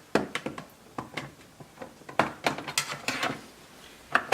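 Dishwasher parts being handled and fitted back into place: an irregular run of clicks and light knocks, about a dozen strikes.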